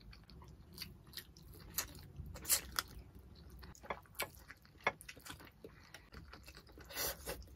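Close-miked eating by hand: chewing and biting of stewed tilapia and rice, with irregular wet mouth clicks and smacks, a few of them louder.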